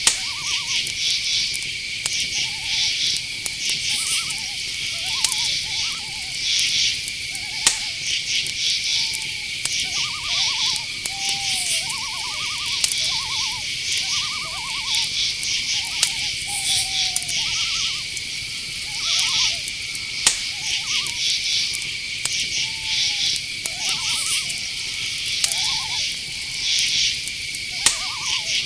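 Night-forest ambience: crickets trilling steadily, with repeated pulsed insect chirps above, and many short owl hoots scattered throughout. Two sharp clicks stand out, about a third of the way in and again past the middle.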